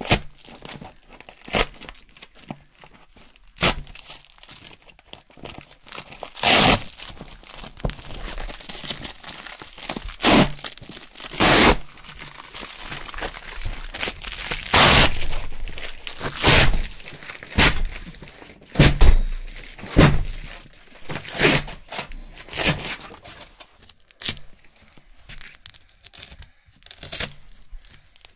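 Velcro hook-and-loop fastener being ripped apart from a loop-fabric board, rip after rip: mostly short sharp tears, with a few longer peels of a second or so and quieter crackling between them.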